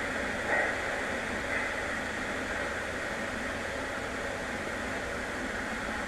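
Steady hiss and low hum from a stork-nest webcam's outdoor microphone at night, with a faint short sound about half a second in.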